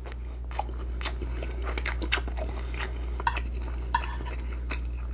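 Close-up chewing of pinakbet, a pork and vegetable stew, with many short wet mouth clicks and smacks. A low steady hum lies underneath.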